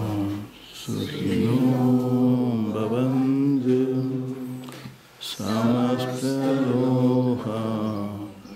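Devotional bhajan chanting: voices sing in two long held phrases of about four seconds each, with a short break for breath between them.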